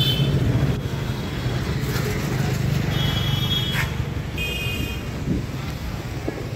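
Road traffic: vehicle engines running with a steady low rumble, and two short high-pitched tones about three and four and a half seconds in.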